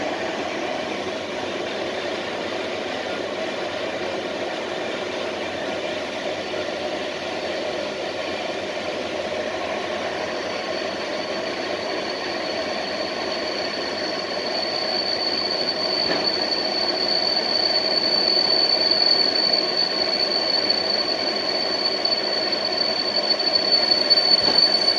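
Passenger train running along the track, heard from inside the rear of the last carriage: a steady rumble with a high, steady whine that comes in about ten seconds in and grows louder through the second half.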